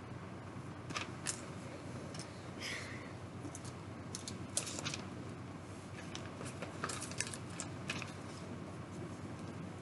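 Plastic Lego bricks being handled: irregular small clicks and rattles, a dozen or so scattered through, with a short rustle about three seconds in, over a steady low background hum.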